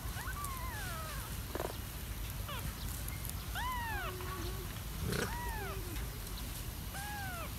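A kitten meowing again and again: about six short, high calls, each rising and falling in pitch. A couple of brief knocks come in between, over a low steady background rumble.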